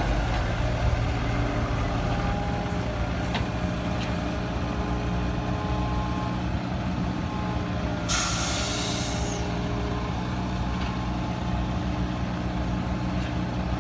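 Heavy diesel engines of a Cat 313B tracked excavator and a wheeled concrete-pump truck running steadily. A burst of hissing air comes about eight seconds in and lasts over a second.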